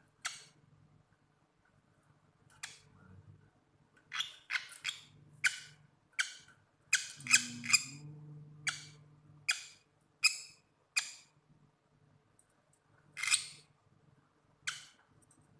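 A lovebird held in the hand giving a string of short, sharp squawks, some in quick runs and others singly with pauses between.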